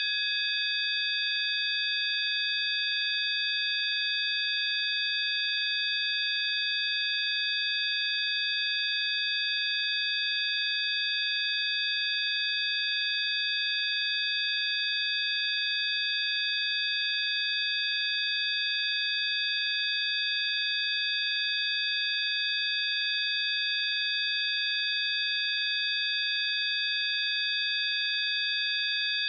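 Several steady, high-pitched electronic tones held together without any change in pitch or loudness, over a faint hiss: a synthesized 'healing frequency' drone.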